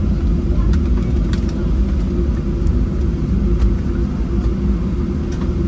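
Steady low rumble heard inside the cabin of a Boeing 737-800 slowing on the runway just after landing: its engines near idle and its wheels rolling on the concrete, with a few faint rattles.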